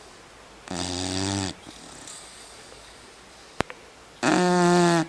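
Snoring: two drawn-out snores of under a second each, the second one louder, with a single sharp click between them.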